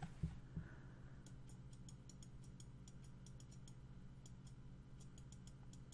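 Faint, irregular clicking of a computer mouse, several clicks a second, while a layer mask is brushed in Photoshop, over a steady low electrical hum. Two soft low thumps come just at the start.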